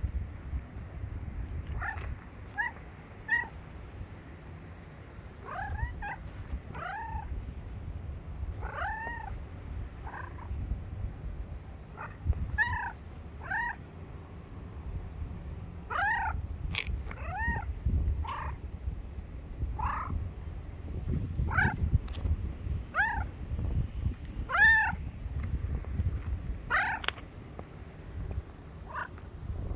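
Domestic cat giving short meows over and over, each rising and then falling in pitch, about one every second or so, with a steady low rumble underneath.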